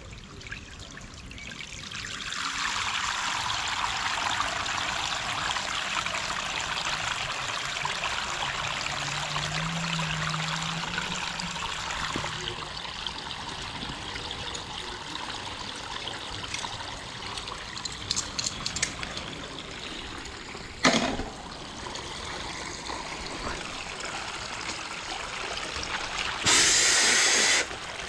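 Floodwater swirling and pouring down into a storm-water drain pit: a steady rushing of water, the sign that the blocked drain has been cleared and is flowing again. It swells about two seconds in, with a sharp knock about two-thirds of the way through and a brief louder rush near the end.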